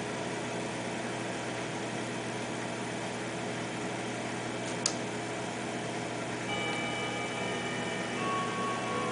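Steady hum and hiss of reef aquarium equipment such as pumps, with one sharp click just before the middle. Sustained tones of background music come in about two-thirds of the way through.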